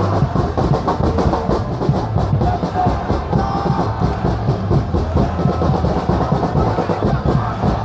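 Drums beaten in a fast, steady rhythm among a stadium crowd of football supporters, with crowd voices over them.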